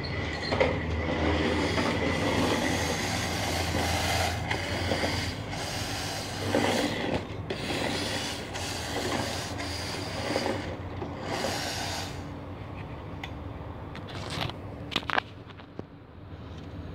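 Remote-control 1:18 scale Scania 124 model truck driving across a tile floor: its small motor and gears run with a steady hum as the wheels roll over the tiles. It gets quieter near the end, with a couple of sharp clicks.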